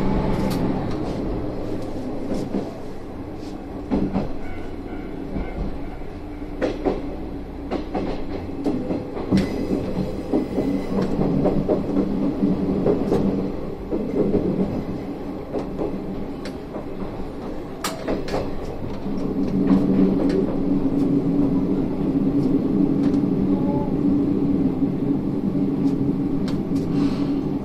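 Isumi 350-series diesel railcar running along the line: the steady drone of its diesel engine, with sharp clicks of the wheels over rail joints and points.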